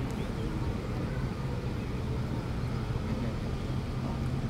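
A steady low mechanical hum, unchanging throughout, over faint outdoor background noise.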